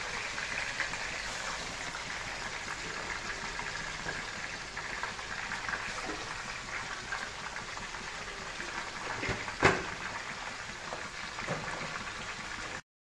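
Fish pieces frying in oil in an aluminium pot, a steady sizzle, with a single knock about ten seconds in. The sound cuts out for a moment near the end.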